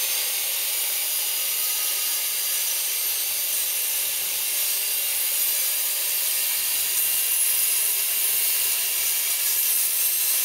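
Handheld electric circular saw running steadily through a cut in softwood tongue-and-groove boards, guided along a rail: a loud, even, mostly high-pitched saw noise.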